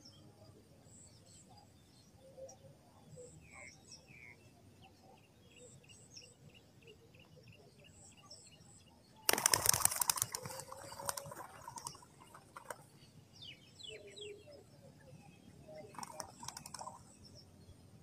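Faint chirping of small birds, broken about halfway through by a loud crackling rustle of dry straw lasting about a second and trailing off. A shorter crackle comes near the end.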